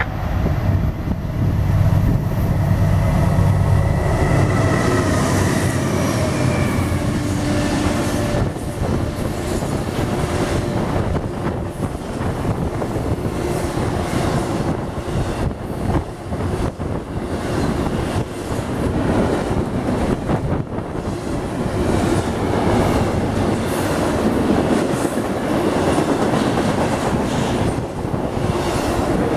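Norfolk Southern intermodal freight train passing at speed. A heavy diesel locomotive rumble with a few steady tones fills the first several seconds. A continuous fast clatter of wheels over rail joints follows as the trailer and double-stack container cars rush by.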